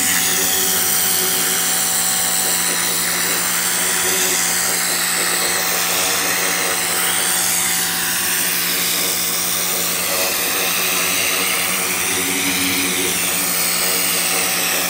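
Hart 2000 PSI electric pressure washer running steadily, its motor humming under the loud hiss of the water jet spraying onto a carpet. The hiss shifts in tone as the spray moves.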